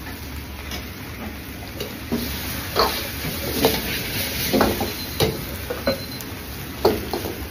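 Metal ladle scraping and clanking against a wok as fried rice is stirred and tossed, in irregular strokes, over the steady low roar of a high-flame wok burner.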